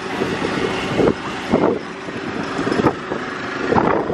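Steady roar of an aircraft engine running on the apron, with wind buffeting the microphone in several short gusts.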